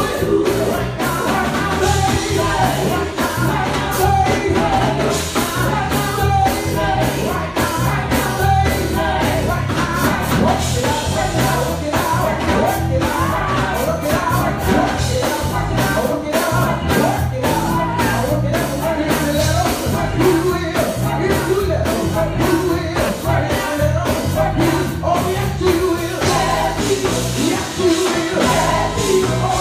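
Live gospel music: a man singing lead into a handheld microphone over a band with a steady drum beat.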